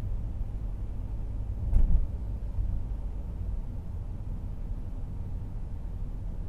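Low, steady road and engine rumble inside a Honda N-WGN kei car's cabin while driving, picked up by the dashcam's microphone. A single louder thump comes a little under two seconds in.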